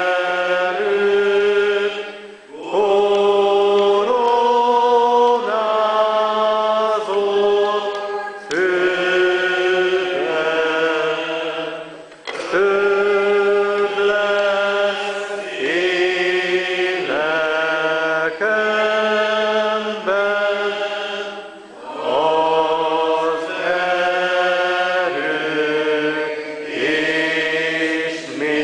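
Church congregation singing a slow hymn: long held notes moving step by step, with short pauses between phrases.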